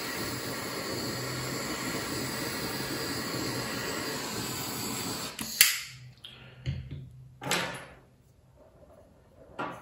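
Small gas torch flame hissing steadily while annealing fine brass wire, shut off about five and a half seconds in. A sharp click follows, then a few light clicks and taps.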